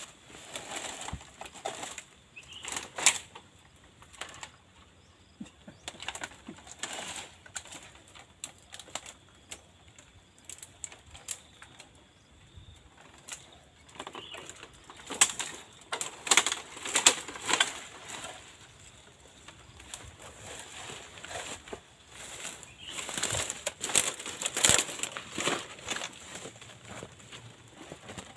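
Irregular crunching and rustling of footsteps through dry leaf litter and undergrowth, in uneven clusters with quieter gaps between.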